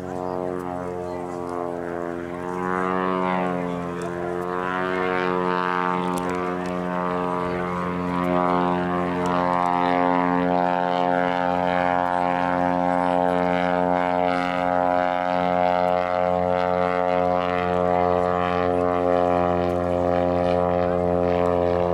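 Aerobatic biplane's piston engine and propeller droning. Its pitch wavers up and down in the first few seconds as it manoeuvres, then holds steady and grows louder.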